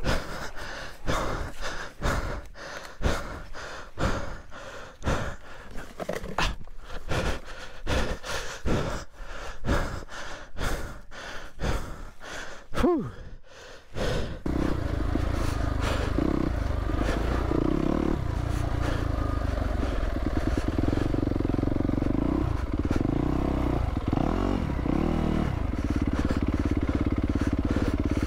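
A Yamaha YZ250F dirt bike being wrestled upright, with scraping, clattering and rustling in dry leaves. About fourteen seconds in, its 250cc four-stroke single-cylinder engine starts and runs steadily, revved briefly a few times.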